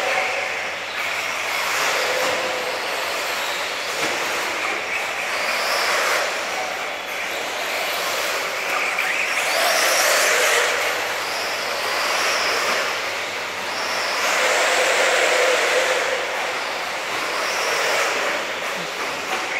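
Brushless electric motors of 1/8-scale off-road RC buggies, Tekno EB48s among them, whining up and down in pitch with the throttle over the hiss of tyres on dirt. The sound swells every few seconds as the cars pass close.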